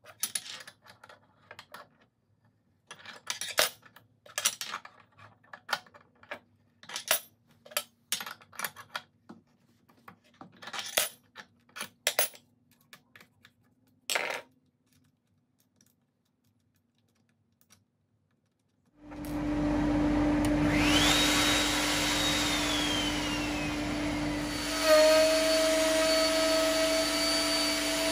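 Metal spanners clinking and being set down on the router table, then a few seconds' pause. A Trend T14 router then starts with a dust extractor: a steady running noise with a whine that rises over about a second and holds. A few seconds later a new steady tone joins and the level jumps briefly.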